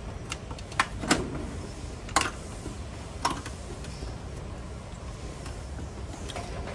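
A few sharp plastic clicks and knocks from removing a flat-panel TV's built-in speaker and its wiring: four short clicks in the first few seconds, over a steady low hum.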